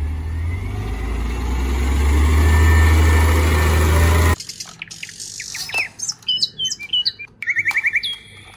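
A garbage truck's engine running with a low, steady rumble, which cuts off abruptly about four seconds in. Birds then chirp in short, quick rising and falling calls.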